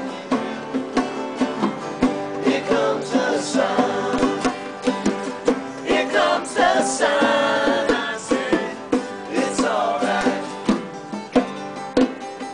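Two acoustic guitars strummed in a steady rhythm, with voices singing along through the middle few seconds.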